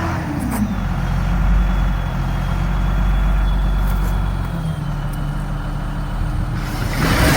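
Truck engine running, its note dropping just after the start and then holding steady, with a faint high whine. A louder rushing clatter comes near the end.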